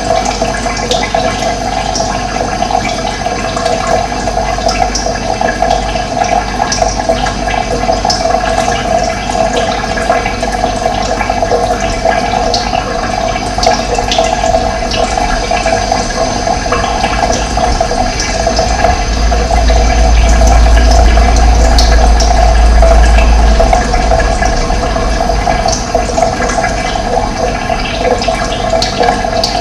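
Running water rushing steadily, with scattered light splashy ticks. A low rumble swells for a few seconds about two-thirds of the way through.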